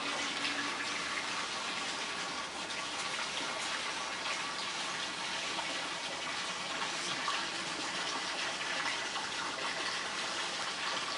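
Steady, even rushing of running water throughout, with faint scattered ticks.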